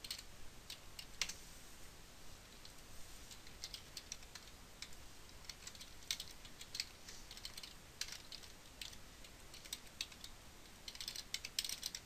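Typing on a computer keyboard: short irregular runs of keystrokes with brief pauses between them.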